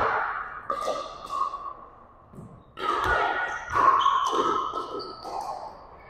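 Pickleball paddles striking the plastic ball and the ball bouncing on the hardwood gym floor: a few sharp pops with ringing echo in a large gymnasium, and faint voices from the surrounding courts.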